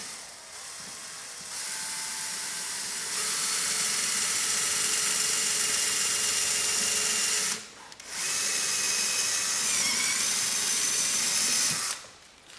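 Power drill drilling out a plastic button-head rivet that holds a door speaker. It runs, gets louder in two steps, stops briefly a little past halfway, then runs again with a short dip in pitch under load before stopping near the end.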